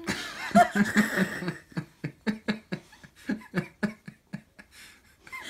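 Laughter: a first burst, then a long run of short rhythmic laughs, about four a second.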